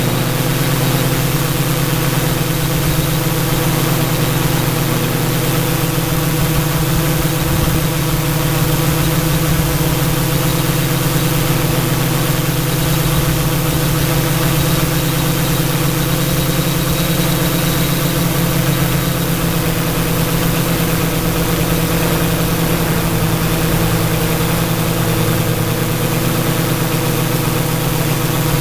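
Steady hum of an XAircraft 650 Pro multirotor's electric motors and propellers, picked up by the camera on the airframe in flight. Several steady tones, their pitch shifting slightly in the second half.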